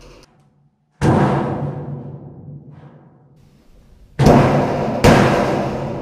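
A rectangular sheet-metal duct section is struck with an open palm to seat its pinch-fit seam. There are three strikes, one about a second in and two close together near the end, each ringing on in the metal and fading slowly.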